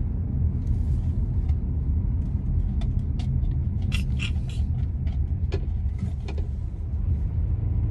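Steady low rumble of a car's engine and road noise heard inside the cabin while driving, with a few faint, irregular clicks.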